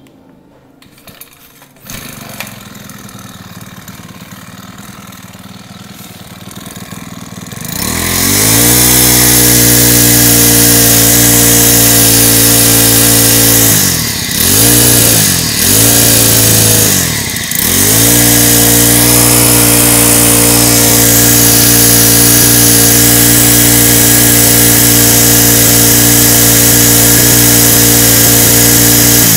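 A Makita MM427 26cc four-stroke brushcutter engine on a test run. It runs quietly at first, then is revved up about eight seconds in and held at high revs, with three quick drops and recoveries in the revs in the middle. The revs drop off at the very end. It runs steadily and evenly, which the seller takes as a sign of an engine in good order.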